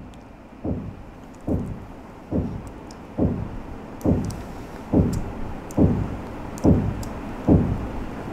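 A steady run of low thumps, a little more than one a second, each dropping quickly in pitch and getting louder over the stretch. A few faint light ticks fall between them.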